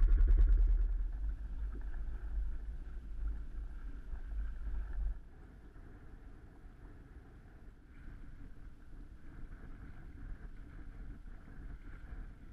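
Wind buffeting the microphone over the rush of water along a sailboat's hull under sail. The low wind rumble drops off sharply about five seconds in, leaving a quieter steady wash of water.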